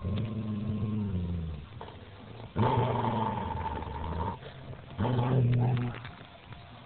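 Dog growling over a large bone it is guarding: three long, low growls, the middle one the longest and the last one the loudest.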